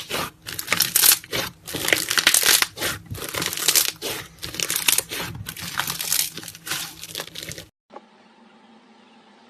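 Slime being squished and kneaded by hand: irregular wet crackling and squelching in quick bursts. It cuts off abruptly near the end, leaving only a faint steady hum.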